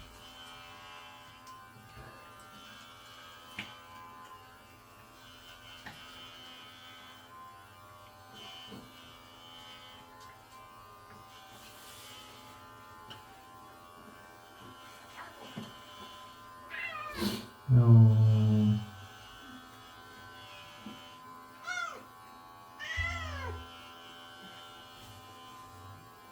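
A domestic cat meowing while being clipped: one long, loud meow about two-thirds of the way in, then two shorter, falling meows, over the faint steady hum of electric pet clippers.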